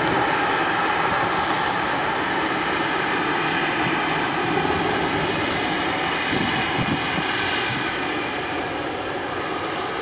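Boeing 767-300ER's twin turbofan engines running as the jet rolls past after landing: a steady jet rush with faint whining tones that eases off slowly over the last few seconds.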